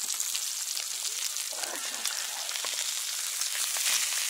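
Pork neck slices sizzling in a frying pan on a portable gas stove: a steady, dense crackle of fine spits and pops.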